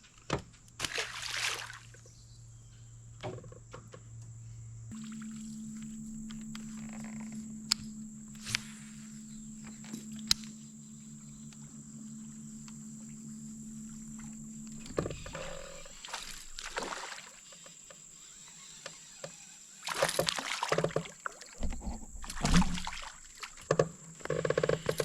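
A small boat's electric trolling motor humming steadily. Its pitch steps up about five seconds in and it cuts off around fifteen seconds, after which there are scattered knocks and rustles against the boat.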